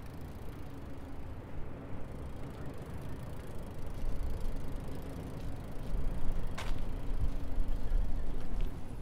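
Low, steady outdoor rumble with a faint hum, growing louder about four seconds in, and a single sharp click near the end.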